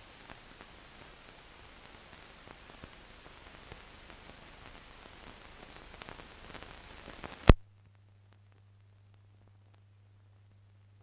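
Surface noise of a silent film's blank soundtrack: steady hiss with scattered crackles and clicks, ending in one loud pop about seven and a half seconds in. After it the sound drops to near silence with only a faint low hum.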